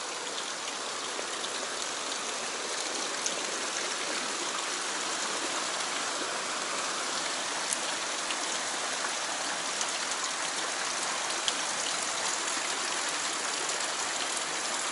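Fast stream current rushing through a narrow rock channel: a steady hiss of whitewater that grows slightly louder across the stretch.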